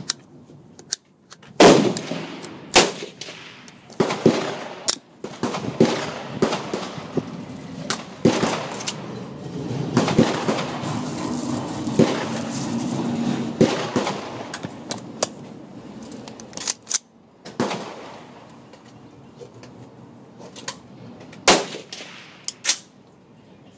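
AR-15 pistol with a Troy Claymore muzzle brake firing a string of single shots, spaced irregularly a second or more apart, each report sharp and loud with an echoing tail under the corrugated metal roof.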